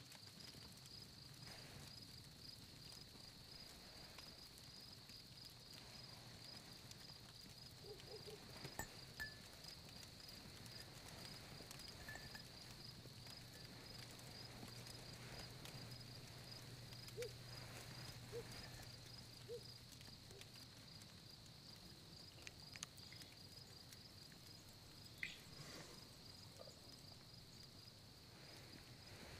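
Faint cricket chirping, steady at about two chirps a second, over a low hum, with a few faint small knocks.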